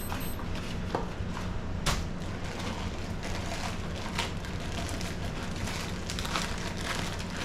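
Irregular crinkling and crackling of plastic packaging being handled and opened, with a sharper click about two seconds in, over a steady low hum.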